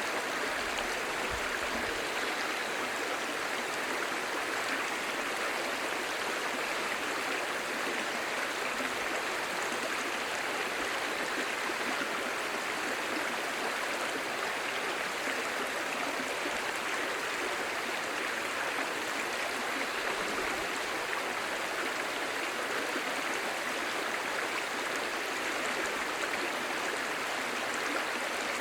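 A clear, shallow stream babbling over stones: a steady, even rush of water with fine gurgling and no change in level.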